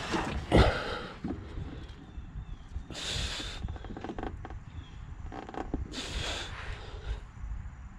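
A man's two sharp breaths out through the nose, about three seconds apart, over low rumbling and faint handling noise as he works under the car.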